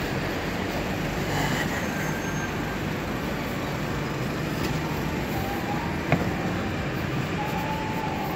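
Steady city street traffic noise, with a single sharp click about six seconds in.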